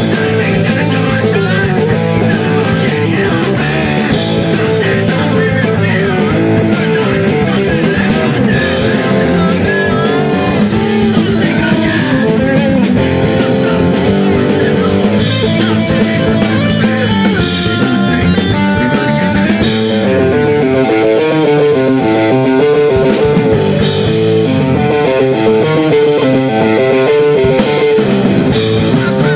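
Loud live rock music from a band: amplified electric guitars, bass guitar and a drum kit playing together. The song moves into a new section about twenty seconds in, with a quicker repeating guitar figure.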